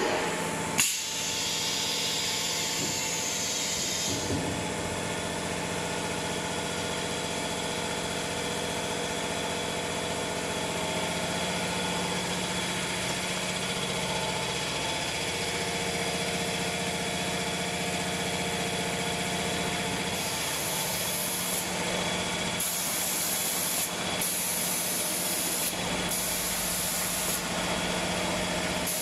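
Automatic spray painting machine for cabinet doors running with a steady hum. A hiss of spraying fills the first few seconds, and a run of short hissing spray bursts, each a second or two long, comes near the end.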